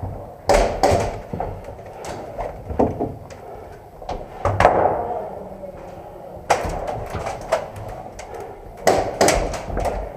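A series of sharp knocks and thuds at irregular intervals, some in quick pairs, with a loose clatter between them.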